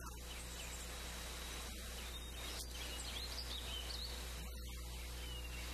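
Faint bird chirps and short calls over a steady low hum and hiss.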